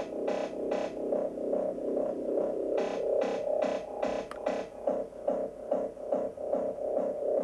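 Electronic music: a synthesizer drone pulsing evenly, about two to three times a second, with a short run of brighter, sharper hits about three to four and a half seconds in.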